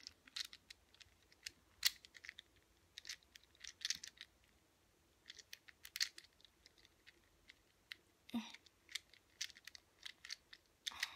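Mini 3x3 speed cube, lubricated with DNM-37, being turned quickly by hand: rapid, irregular plastic clicks and clacks as its layers turn, with a short pause about four seconds in.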